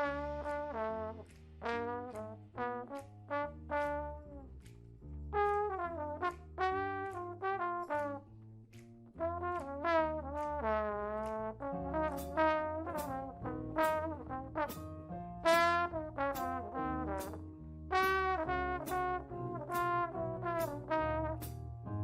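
Brass ensemble music: trombones and trumpets playing a quick tune in short, clearly attacked notes over a low bass part.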